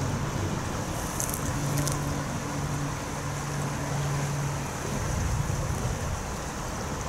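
Steady outdoor rush of wind and river water, with the low drone of a distant road vehicle's engine running under it. Two faint high clicks come about one and two seconds in.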